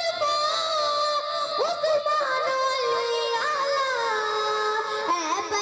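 A boy singing a Punjabi naat into a microphone: long held notes with ornamental pitch slides, stepping gradually lower through the phrase.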